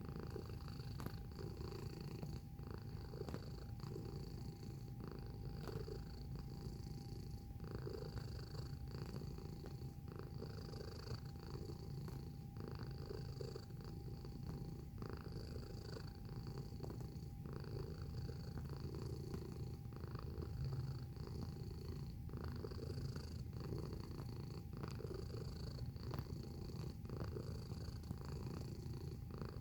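Domestic cat purring close to the microphone: a continuous low rumble that swells and eases in a regular rhythm of about once a second.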